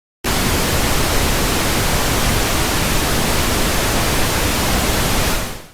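Loud static hiss, like a dead broadcast channel, cutting in abruptly and holding steady for about five seconds, then fading out quickly near the end.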